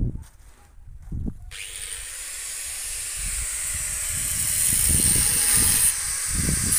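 Iron sliding gate rolling along its ground rail: a steady hissing run of the wheel on the track that starts suddenly about a second and a half in and grows louder, with uneven low rumbles under it.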